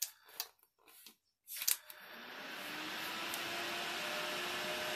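Sensor-activated electric nail polish fan dryer (Makartt ZC-044) starting up after a couple of light clicks about a second and a half in. Its fan spins up into a steady rushing blow with a faint rising hum, then holds steady.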